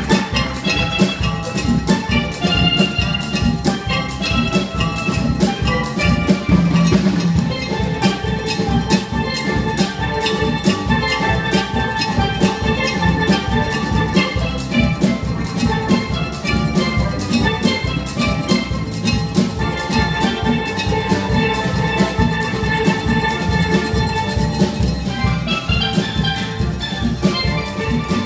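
Steel band playing: several steel pans strike a busy, rhythmic melody over drums, a steady run of struck notes.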